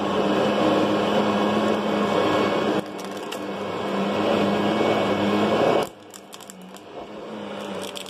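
Kirby direct-air upright vacuum cleaner running on high over carpet, a steady motor hum. It dips about three seconds in and drops sharply about six seconds in, followed by a few sharp clicks.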